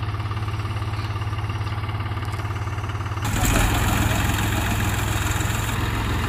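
New Holland tractors' diesel engines running steadily at idle; about three seconds in the sound turns suddenly louder and rougher as the engines work harder to pull the stuck tractor from the mud.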